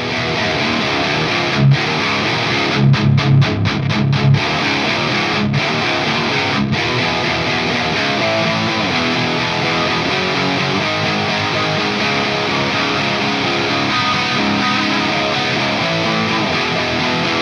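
Double-tracked, heavily distorted electric guitar riff with no drums or bass. It is a Gibson Les Paul Custom through a Friedman JJ JR tube amp head, gain almost full and bass cranked, heard through Marshall 4x12 cabinet impulse responses. In the first few seconds the riff breaks into a handful of short, choppy stops with low chugs, then rings on without a break.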